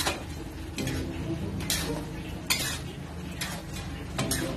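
Metal cooking utensils scraping and clanking against a large metal wok as a wokful of rice noodles (pansit bihon) is tossed and stirred, about one sharp scrape a second.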